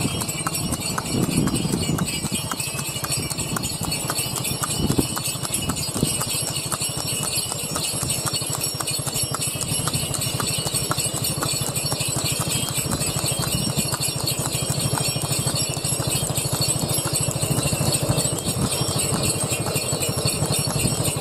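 A horse's hooves clip-clopping in a quick, regular trot on a paved road as it pulls a two-wheeled horse cart, with a light jingle of harness bells.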